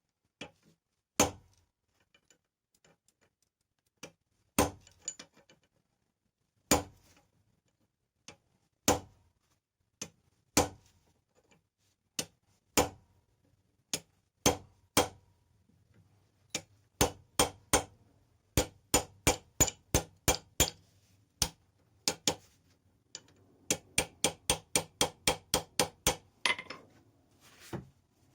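Hand hammer striking steel on an anvil while forging an awl: single sharp blows a second or two apart at first, then quicker runs of about three blows a second in the second half.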